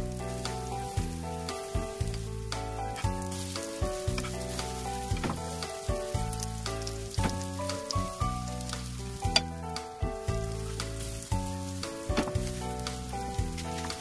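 Tofu pancakes frying in oil in a nonstick pan, a steady sizzle with sharp clicks and taps as spatulas turn them. Instrumental background music plays under it.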